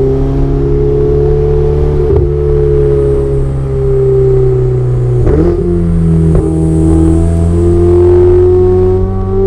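Ferrari 488 Spider's twin-turbo V8 engine and exhaust, running loudly under way at fairly steady engine speed, with a short break and a change in pitch about five seconds in, as at a gear change.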